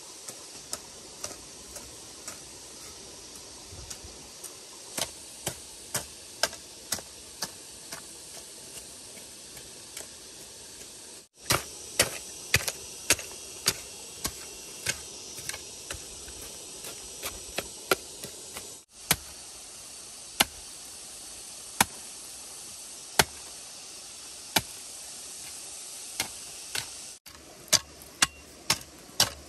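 A run of sharp, irregular clicks or taps, roughly one or two a second, over a steady hiss. The sound breaks off abruptly several times and picks up again.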